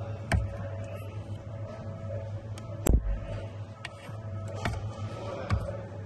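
About five sharp plastic clicks and knocks from handling an accelerator pedal assembly and its wiring connector, the loudest near the middle with a dull thump, over a steady low hum.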